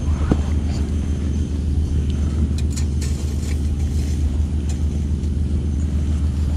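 A steady low rumble with a few faint light clicks.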